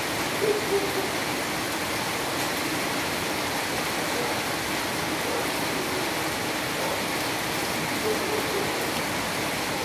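Steady rain falling on a wet paved street and roofs, an even hiss with no letup. A few short, louder blips stand out about half a second in and again around eight seconds.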